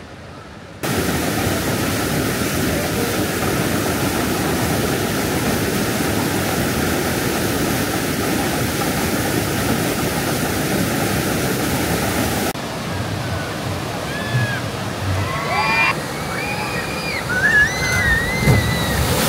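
Water rushing and splashing at a shoot-the-chute water ride, a steady loud rush that cuts in suddenly about a second in and drops away sharply about twelve seconds in. After that the water is quieter and several high-pitched voices shriek and yell near the end.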